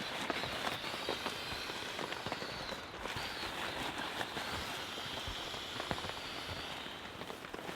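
Rain falling on a tarp shelter: a steady hiss with many scattered ticks of drops striking the tarp.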